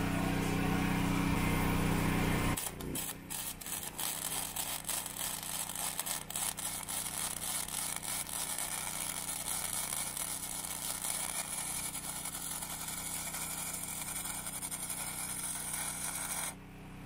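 A steady machine hum, then about two and a half seconds in a MIG welding arc strikes and crackles and sputters for about fourteen seconds before cutting off. It is one long tack weld on cold steel.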